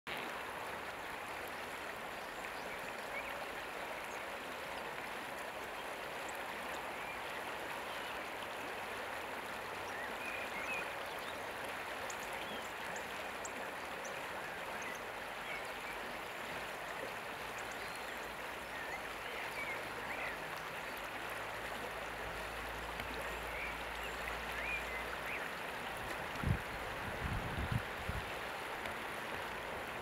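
Steady rushing of a flowing river, an even wash of water noise, with a few low thumps near the end.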